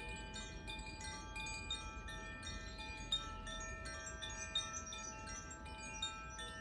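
Koshi and Zaphir tuned chimes being played, a continuous shimmer of many overlapping ringing notes as new strikes keep sounding. Three strikes stand out louder, around halfway, about two-thirds in and near the end.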